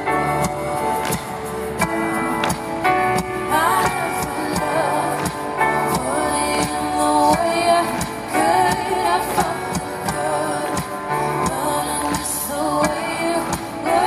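Live pop band playing in a large hall, recorded from the crowd: a steady drum beat under keyboards and guitar, with a woman's lead vocal coming in about three to four seconds in and carrying on.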